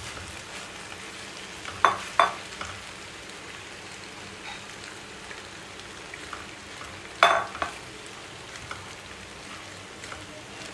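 Vegetables and boiled macaroni sizzling steadily in a non-stick frying pan as they are stirred with a silicone spatula. Three sharp utensil knocks cut through, two close together about two seconds in and one about seven seconds in.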